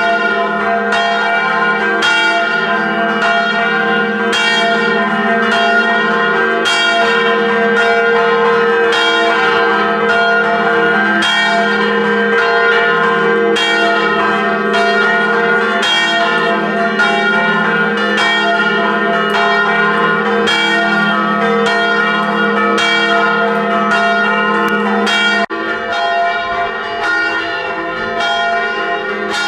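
Church bells rung by hand by a ringer standing among them in the belfry. They strike about once or twice a second, with several bells' tones ringing on over one another.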